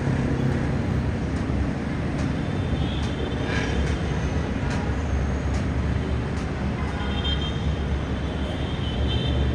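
Distant heavy city traffic: a steady rumble of engines and tyres, with faint high squeals about three seconds in and again near the end.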